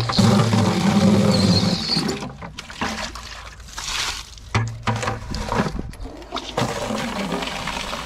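Water pouring and splashing in three spells, the first and loudest lasting about two seconds.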